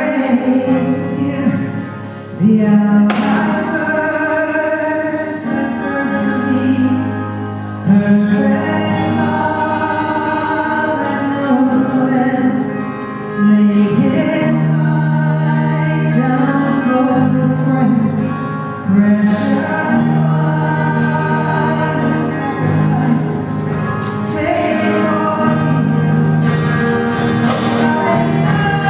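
Live worship band playing a contemporary Christian song, with singing over acoustic guitar, keyboard and drums.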